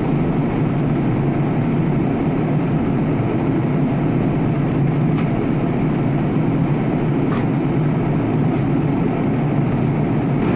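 Steady, low rumble of a four-engined Airbus A340-600 jet airliner, with a few faint clicks in the second half.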